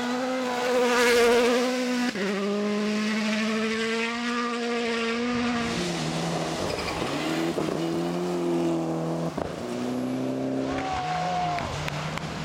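Rally car engines at high revs on a gravel stage, led by a Hyundai i20 WRC. The note steps down at gear changes about two and six seconds in and rises again later, loudest as the first car passes close about a second in.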